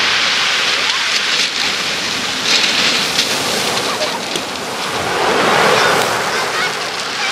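Surf breaking and washing up a pebble beach, a continuous rushing hiss that swells louder about five seconds in as a bigger wave surges up the stones.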